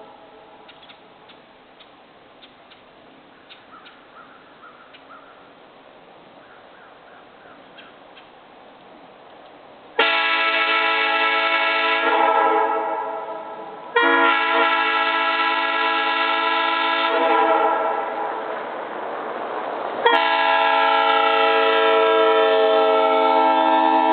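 Homemade PVC copy of a Nathan Airchime M3 three-chime train horn, built from 4-inch PVC reducers, blasting a chord three times. Each blast starts suddenly and lasts about three seconds; the first comes after about ten seconds of low-level sound with a few faint clicks. The second blast fades into a hiss before the third.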